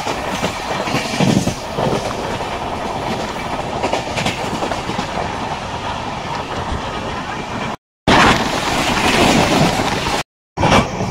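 Passenger train running at speed, heard from an open coach door: a steady clatter of wheels over rail joints with rushing air. The sound drops out twice for a moment at hard cuts, and it is louder in the stretch where another train passes close alongside.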